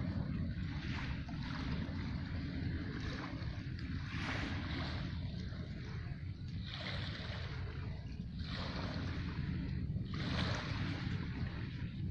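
Wind rumbling on the microphone, with small lake waves washing over a pebble shore every second or two.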